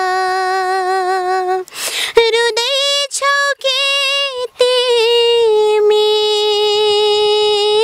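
A young woman singing a Nepali song unaccompanied: a long held note with slight vibrato, a quick breath about two seconds in, a few short notes, then another long held note.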